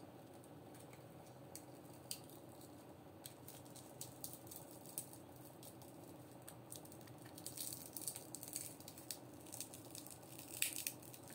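Faint scattered crackles and ticks of a cracked tempered-glass phone screen protector being bent back and forth by hand, the glass cracking further. The clicks come sparsely at first and grow thicker in the second half, with a small cluster near the end.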